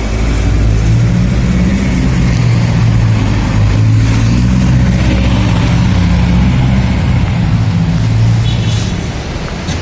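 Steady low rumble of a motor vehicle, with a drone whose low tones shift in pitch.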